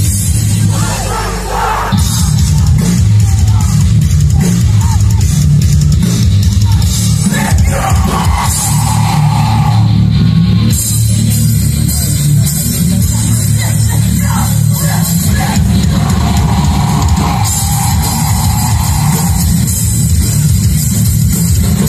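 Death metal band playing live through a PA: distorted guitars, bass and drums, with the low end filling the sound.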